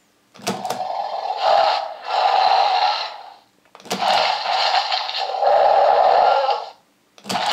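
Electronic dinosaur roar sound effects from a Mattel Roarivores Sinoceratops toy, played through its small built-in speaker when its back is pressed. Each starts with a click and then a growling roar of about three seconds. This happens twice, and a third starts near the end. The sounds mix carnivore-style growls into herbivore calls.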